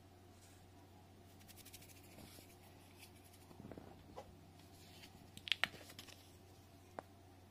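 Clear plastic tub of sand being handled: faint crackling rustles, then a few sharp clicks about five and a half seconds in and one more near the end.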